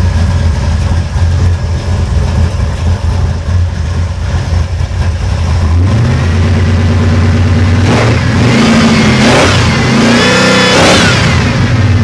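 1973 Chevrolet Caprice's V8 idling with an unsteady note. About six seconds in the idle steps up, and from about eight seconds in the engine is revved several times, its pitch climbing and falling with each blip.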